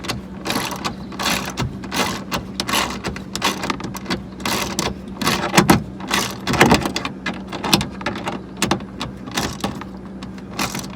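Irregular mechanical clicking and ratcheting as loose screws in a car's inner door panel are tightened.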